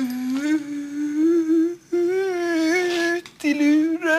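A man's voice humming a wordless tune in three long held notes with short breaks between them, the first lasting about two seconds.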